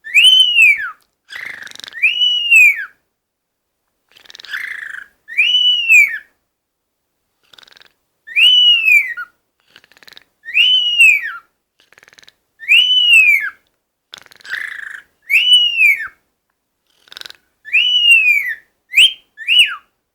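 Cockatiel whistling the same arched note over and over, each one rising and then falling, about ten times at roughly two-second intervals, with the last two quicker and shorter near the end. Between the whistles come short raspy, hissing sounds, the bird's 'snoring' (roncando).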